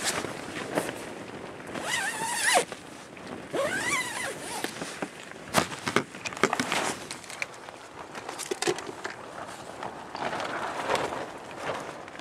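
Tent fabric rustling and snapping irregularly as gusts of wind shake the tent, with sharp cracks scattered through and two brief wavering whistles about two and four seconds in.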